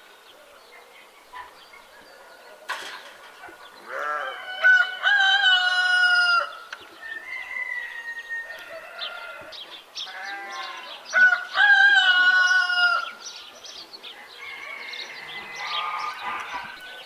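A rooster crowing twice, each crow a long call about two to three seconds, the first about four seconds in and the second about ten seconds in, with softer shorter calls of chickens between and after.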